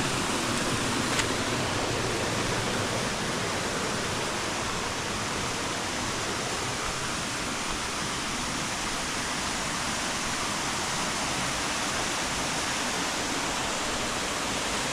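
Steady rush of a waterfall's falling water, an even hiss without breaks.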